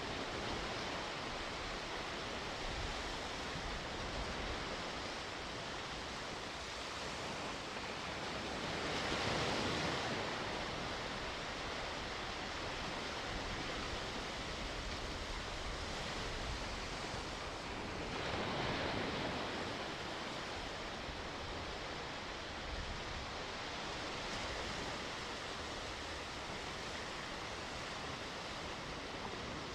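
Sea waves washing onto the shore with a steady hiss of surf, two waves breaking louder, about nine and eighteen seconds in.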